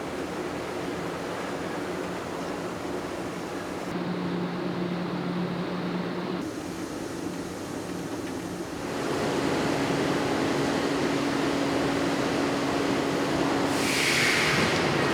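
Steady factory machinery noise with a low hum. Its character changes abruptly a few times, and there is a brief, loud hiss near the end.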